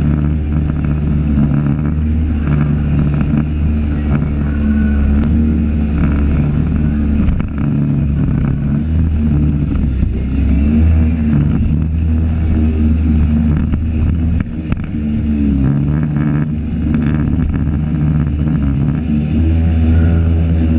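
Jet boat's engine running hard, its pitch rising and falling several times as the throttle is worked through river rapids, with water rushing along the hull.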